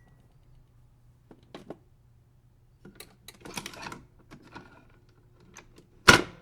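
Scattered light clicks and rattles over a faint steady low hum, busiest about three and a half seconds in, then one loud sharp knock near the end.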